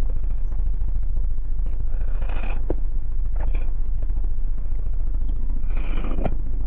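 A steady low hum runs through, with short rustling swishes about two, three and a half and six seconds in, the first and last ending in a sharp thud: a martial artist's silk suit swishing and feet striking the ground during a tai chi form.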